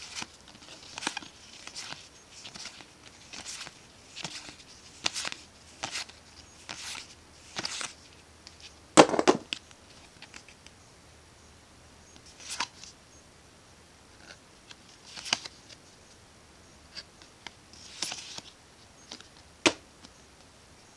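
Magic: The Gathering trading cards sliding and flicking against each other as they are moved one at a time from the front to the back of a small stack in the hands: short swishes about once a second for the first eight seconds, the loudest one about nine seconds in, then a few scattered ones.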